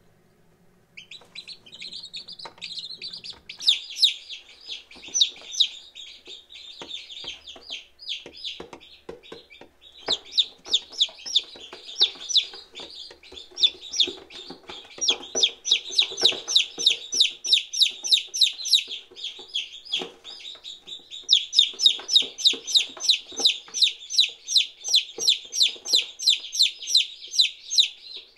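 Day-old chicks peeping: short, high, rapidly repeated calls that start about a second in and grow louder and more regular in the second half.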